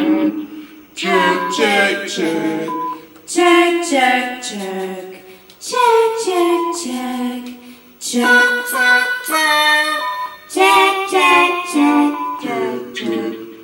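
A woman singing short phrases in funny put-on voices, unaccompanied, with brief pauses between phrases.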